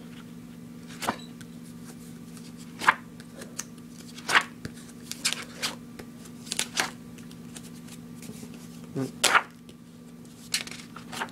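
Paper pages of a spiral-bound sketchbook being flipped and handled: a dozen or so short, irregular paper flicks and rustles, over a steady low hum.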